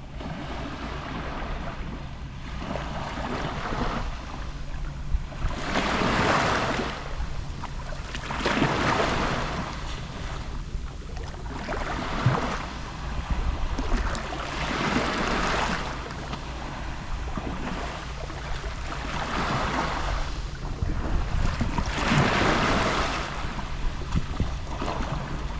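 Gentle Mediterranean sea waves lapping on the shore, each wave a rising and falling hiss every two to three seconds, over a steady low rumble.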